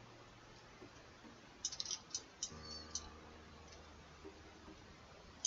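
Faint clicking of a computer mouse and keyboard: a quick cluster of clicks about two seconds in, a few more just after, and a single click near the end.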